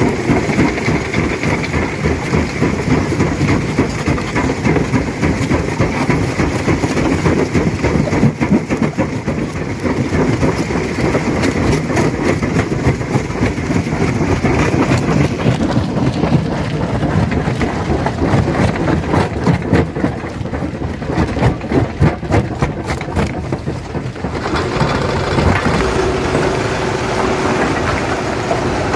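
Stone crusher crushing rock: a heavy continuous rumble of the machine, with dense clattering and knocking of stones breaking and tumbling. The sound changes character about halfway in, then again near the end.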